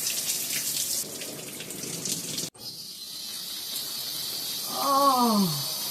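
Water spraying and splashing from a shower head, cut off abruptly about two and a half seconds in. Near the end comes a short pitched, voice-like sound that falls in pitch.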